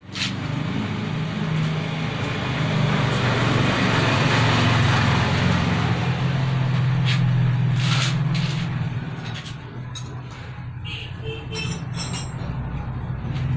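A motor vehicle's engine running with a steady low hum, swelling over several seconds and then fading away. A few light clicks and clinks come in the second half.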